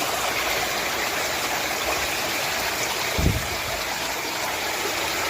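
Steady rush of water at the top of a waterfall, with one short low thump about three seconds in.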